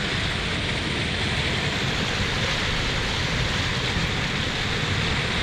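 Steady rushing noise of wind blowing across the microphone, with an unsteady rumble underneath.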